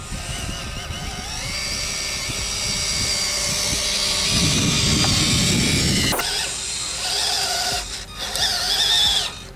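Fayee FY003 RC truck's small 180 brushed motor and plastic gearbox whining as it drives on rubber tracks, with a rough rattle from the tracks over rocky ground. After a cut about six seconds in, the whine rises and wavers with throttle while the tracks slip in loose sand.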